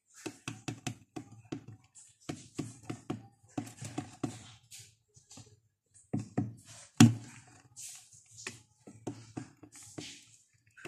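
Chicks pecking at feed crumbs on a hard plastic floor: quick, irregular taps in clusters, with one loud knock about seven seconds in.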